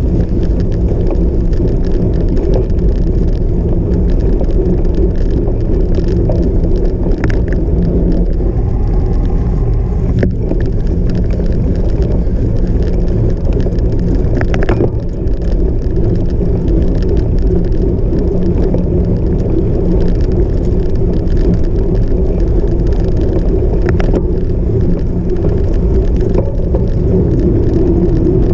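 Cyclocross bike being ridden off-road: a steady rumble of wind and tyres on the microphone, with the bike rattling and a few sharp knocks over bumps.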